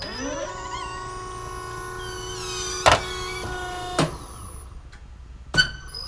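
Hydraulic test-bench pump motor starting up and running with a steady whine while a locking-type main landing gear actuator cycles under test. Three sharp mechanical clunks, the loudest about three seconds in and two smaller ones around four seconds and near the end, come as the bench switches over and the actuator strokes and locks.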